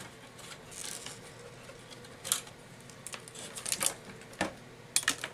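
Scattered small clicks and short rustles of hands handling the opened label printer's plastic parts and its screen cable, loudest in a quick cluster of clicks near the end.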